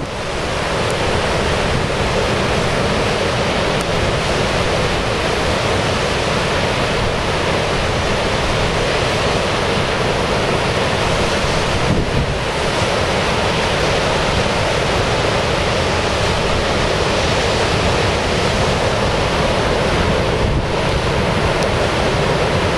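Ocean surf breaking and whitewater washing in, a steady rush of noise, with wind buffeting the microphone.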